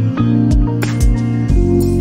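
Instrumental background music: sustained chords with a beat of drum hits.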